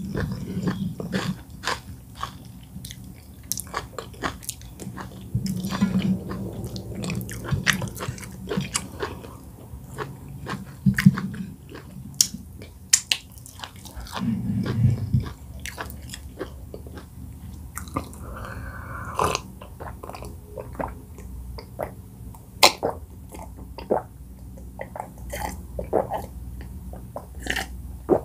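Close-miked mouth sounds of a person eating oat fufu with bitterleaf soup by hand: chewing, wet lip smacks and sticky clicks throughout, with a few short low hums.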